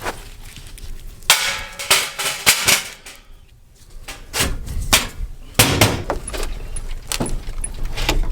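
A series of irregular metallic knocks, clanks and rattles, with a short quiet gap a little over three seconds in.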